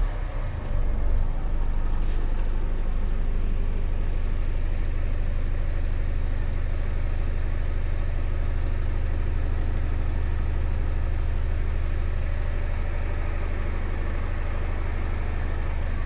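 DAF LF45's 160 bhp turbocharged diesel engine idling steadily, heard from inside the truck's cab as a low, even rumble.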